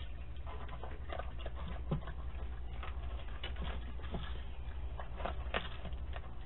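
Raccoons eating from food bowls on a wooden deck: scattered small clicks and taps of feeding, bowls and paws, over a steady low hum from the camera's microphone.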